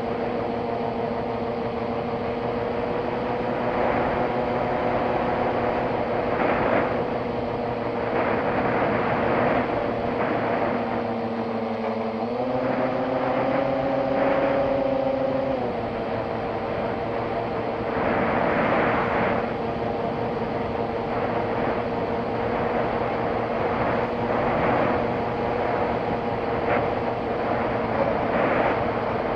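A small aircraft's propeller motor drones steadily from a camera mounted on the plane, with wind rushing past. About halfway through the pitch steps up for a few seconds, as under more throttle, then settles back to its earlier note.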